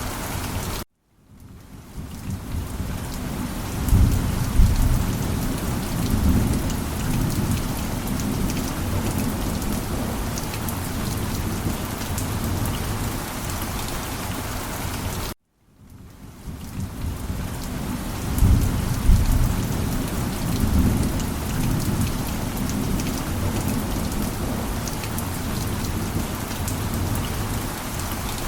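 Steady heavy rain with rolling thunder: a low rumble swells about four seconds in and again about eighteen seconds in. The sound cuts out sharply twice, about a second in and about fifteen seconds in, and fades back up each time, as a looped recording repeating about every fourteen and a half seconds.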